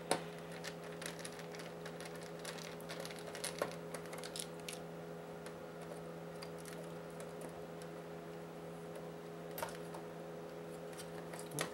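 Light clicks and taps of a small screwdriver and fingers on the PS4's plastic Blu-ray drive casing and circuit board as a hidden screw is worked at. The clicks come thickest in the first few seconds and then thin out, over a steady low hum.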